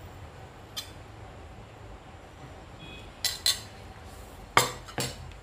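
Steel serving spoon clinking against a ceramic plate and dishes while cooked rice is scooped out: a light clink about a second in, then two pairs of sharp clinks about three and four and a half seconds in, the later pair the loudest.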